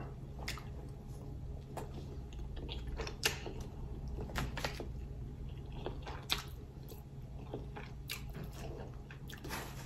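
Close-up chewing of animal-style fries (fries under melted cheese, spread and grilled onions), with wet mouth sounds and scattered short clicks over a steady low background hum.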